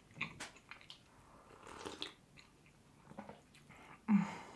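Tea sipped from a mug close to the microphone: soft sips with quiet mouth clicks and swallows, and a louder mouth sound about four seconds in.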